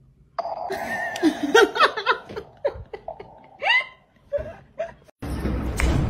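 A person laughing in short, choppy, gasping bursts. About five seconds in it cuts off and a steady hiss of background noise begins.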